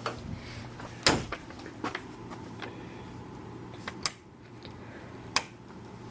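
A few scattered knocks and clicks, the loudest about a second in, over a faint low hum.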